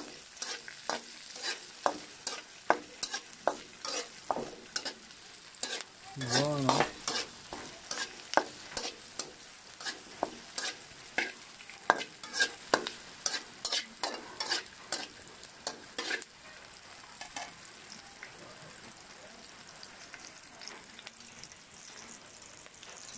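Garlic, red onion and green chili frying in hot oil in a wok, with a steady sizzle and repeated stirring strokes scraping and knocking against the pan, about one or two a second. The stirring stops about sixteen seconds in, leaving only the sizzle. A brief pitched sound comes about six seconds in.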